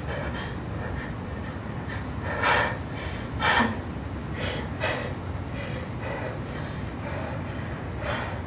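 A woman breathing heavily, with sharp intakes of breath about two and a half and three and a half seconds in and a few smaller ones after, over a steady low rumble.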